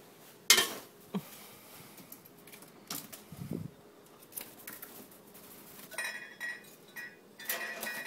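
Household objects knocked and handled: a sharp knock about half a second in, lighter knocks and a dull thump around three seconds, then a few short, high, chirp-like tones near the end.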